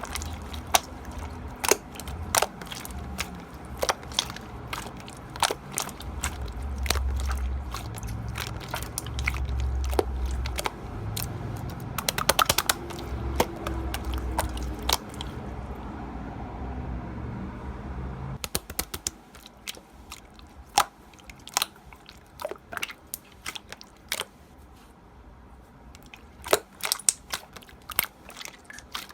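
Slime being squeezed and poked by hand, making many crisp clicks and pops, with a fast run of clicks about twelve seconds in. A low rumble underneath stops suddenly about eighteen seconds in.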